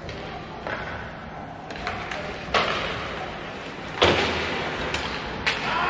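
Four sharp thuds and slams with a ringing echo of a large hall, the loudest about four seconds in, over a background murmur of voices.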